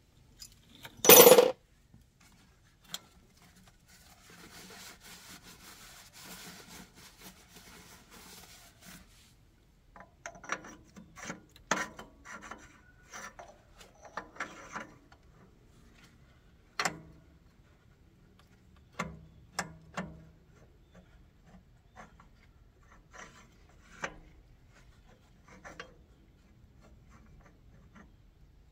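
Metal tractor clutch parts being handled and fitted by hand. There is one loud sharp clank about a second in, then several seconds of scraping, then a run of light knocks and clicks.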